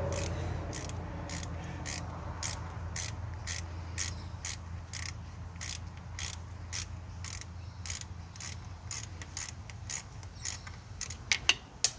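Quarter-inch ratchet with a 10 mm six-point socket clicking steadily, about two to three clicks a second, as a loosened water pump bolt is wound out. A low steady hum runs underneath, and a few louder clicks come near the end.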